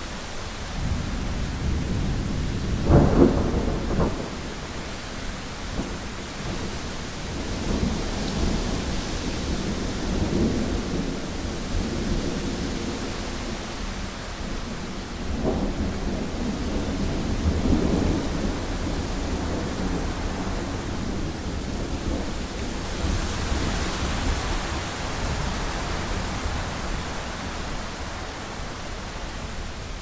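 Thunderstorm: steady rain hiss with rolling thunder. A sharp, loud crack about three seconds in is followed by long low rumbles, and the hiss of wind and rain swells for a few seconds in the second half.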